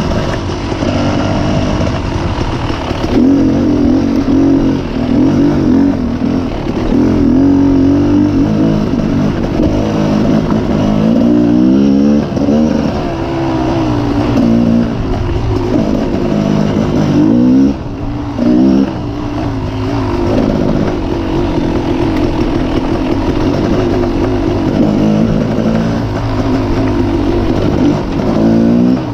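Dirt bike engine running hard under the rider, its pitch repeatedly rising and falling as the throttle is opened and eased off. There is a quick run of rising revs around the middle and a brief dip in loudness a little past halfway.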